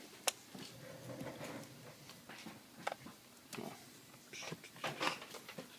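Scattered light clicks and taps of a small hand tool and laptop parts being handled during reassembly, with a sharp click about a third of a second in.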